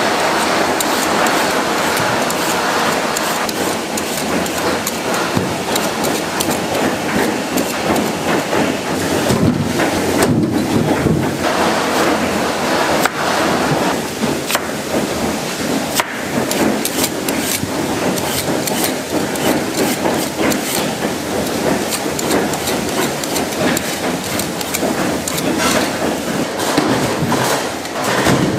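Steady clattering din of a vegetable-processing line, with many sharp knocks and scrapes of knives on a cutting table as Korean radishes are peeled by hand.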